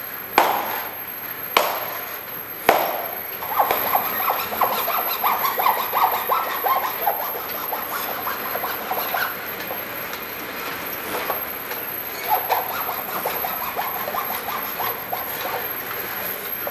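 Three sharp knocks in the first three seconds, then a hand saw cutting wood: a fast, scratchy rasping that thins out past the middle and picks up again near the end.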